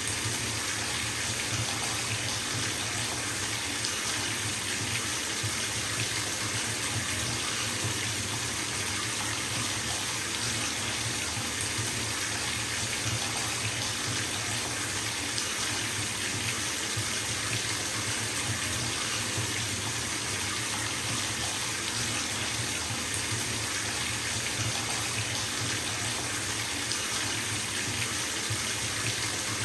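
Water running from a tap into a filling bathtub, a steady, even rush of splashing water.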